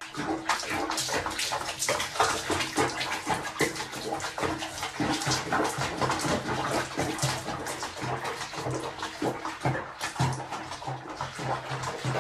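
Water splashing and sloshing in a small plastic basin as a cat moves about in it: many small irregular splashes.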